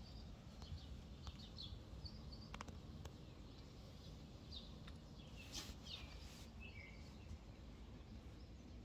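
Birds chirping faintly in short, scattered calls, with a stronger falling call a little past the middle, over a low steady background hum.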